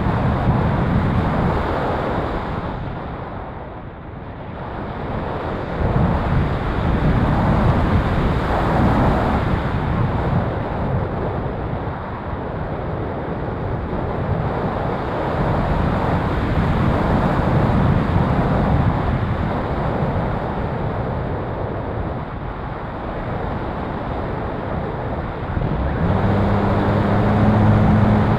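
Rushing wind noise from airflow over the onboard camera of a radio-controlled ASW28 glider in flight, swelling and easing, quieter about four seconds in. Near the end a steady low hum comes in under the rush.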